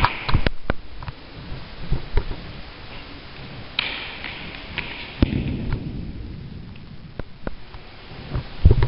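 Scattered thuds and knocks in a gymnasium from an indoor baseball fielding drill: the ball striking and bouncing, and footsteps on the court. They come a few seconds apart, loudest just after the start and near the end.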